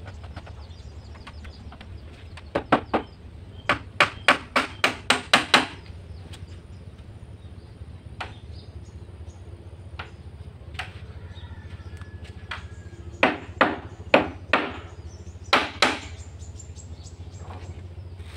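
Claw hammer driving 2-inch nails into meranti boat timber: quick runs of sharp strikes, the longest about eight blows in two seconds, with single taps between.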